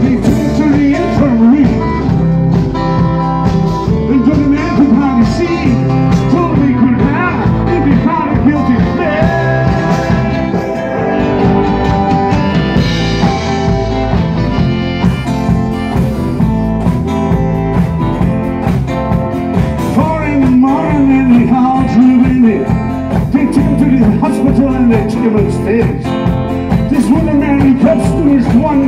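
Live rock band playing a folk-rock song: drums, bass guitar and electric guitars, loud and steady with a regular beat.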